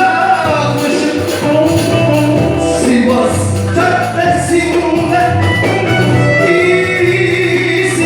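Music: a Turkish song playing on, a melody over held low accompaniment with no clear words.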